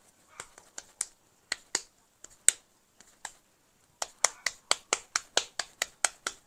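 Corn masa dough being patted flat between the palms to shape gorditas: sharp slaps, sparse and uneven at first, then a steady run of about four to five pats a second for the last couple of seconds.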